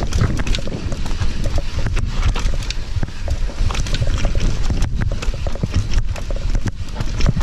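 Mountain bike clattering down a stony dirt trail: a rapid, irregular run of knocks and rattles from the tyres, frame and chain jolting over stones and roots, over a steady low rumble of rolling and wind on the microphone.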